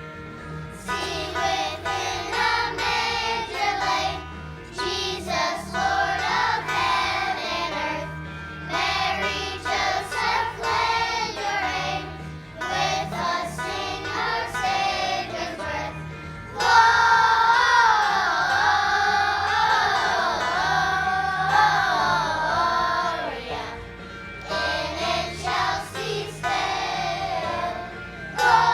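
A group of children singing a song with instrumental accompaniment; the singing grows louder and fuller about seventeen seconds in.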